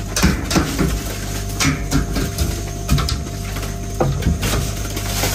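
A wooden pole knocking thick ice off a cold-storage room's ceiling cooler: irregular knocks every half second to a second, with ice chunks clattering down. A steady machine hum runs underneath. The ice buildup is thick enough to weaken the cold store's cooling.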